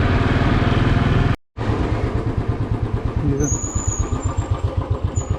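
Motorcycle engine running, then, after a short cut, idling with a rapid, even putter.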